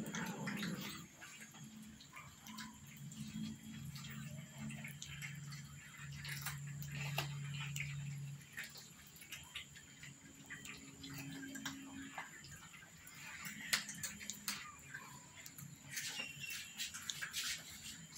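Kittens and cats eating together, a patter of small wet clicks and smacks from their chewing. A low hum comes and goes underneath.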